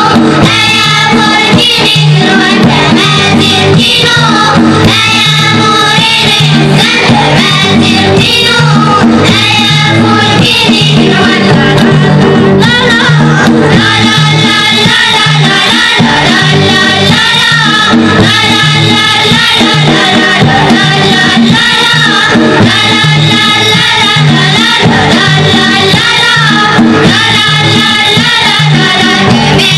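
Children's choir singing an Amazigh song together, accompanied by banjo and hand drum with a steady beat.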